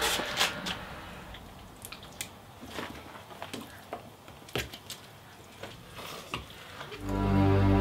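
Hand-cranked metal meat grinder mincing meat: scattered wet squishing and irregular clicks of the crank and auger. Music comes in near the end.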